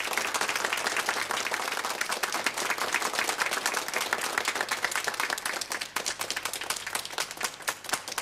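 Audience applause at the close of a song. It thins out to scattered claps near the end.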